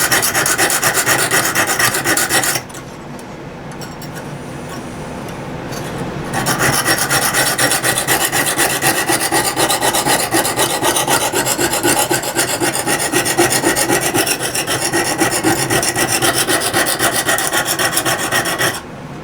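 Lansky extra-coarse 70-grit hone scraping back and forth across the steel spine of a saw blade in rapid strokes, grinding a new bevel into tough steel. The strokes ease off for a few seconds about three seconds in, then pick up again and stop shortly before the end.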